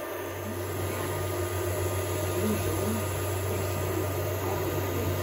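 Creality FDM 3D printer running a print: a steady whir and hum from its cooling fans, with short pitched whines from the stepper motors as the print head moves.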